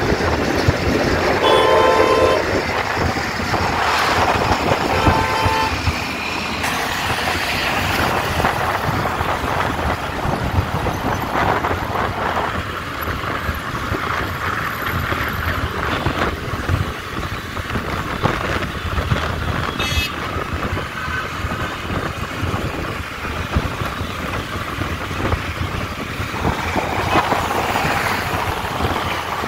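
Road traffic and wind rush on the microphone, heard from a moving scooter in city traffic. A vehicle horn honks two or three times in the first five seconds.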